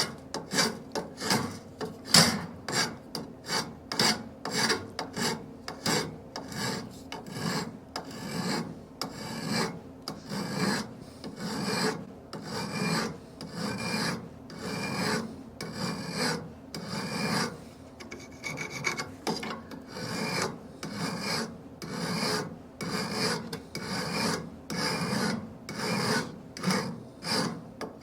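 Hand file rasping across a freshly butt-welded steel bandsaw blade in steady repeated strokes, about one and a half a second, knocking off the slag squeezed out on both sides of the weld joint.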